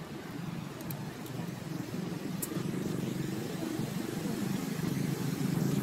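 A low engine rumble that slowly grows louder.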